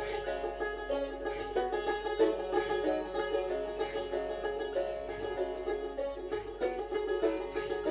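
A plucked long-necked lute playing a melody of quick picked notes.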